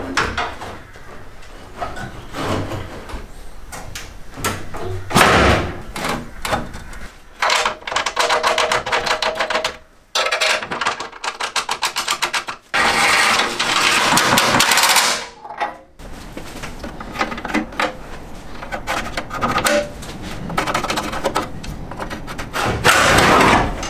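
Steel front core support panel being handled and bolted onto the car's chassis rails: metal clanks and knocks, one sharp loud knock about five seconds in, and several short spells of rapid, rattling tool noise as the bolts are run into the rivnuts.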